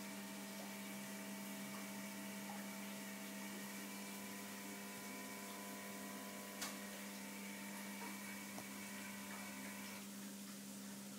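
Steady electric hum from a koi pond's pump and filtration equipment, with a faint even hiss and a single light click about six and a half seconds in.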